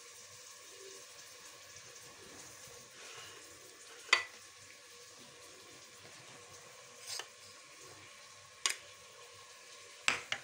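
Onion frying in hot ghee: a soft, steady sizzle, with five short sharp clicks scattered through it, the loudest about four seconds in.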